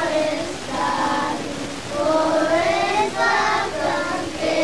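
A group of young children singing together, holding each note briefly.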